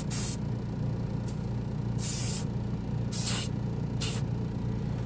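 Airbrush spraying lacquer paint in short hissing bursts, about five in a few seconds, over a steady low hum.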